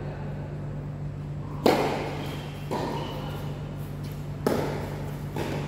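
Tennis ball struck by rackets and bouncing during a doubles rally: four sharp hits, the loudest about a second and a half in, then others at roughly one-second gaps. A steady low hum runs underneath.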